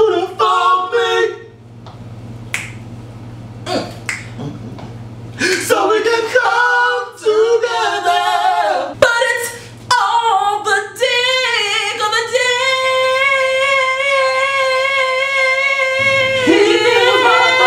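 Two men singing without instruments, with a few sharp clicks in a quieter stretch early on, then holding one long high note through most of the last third.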